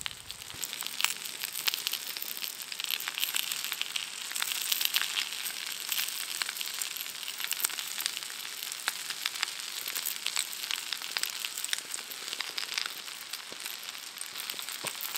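Yakisoba noodles with offal (horumon) sizzling in a frying pan on a portable gas stove: a steady frying hiss full of small crackling pops.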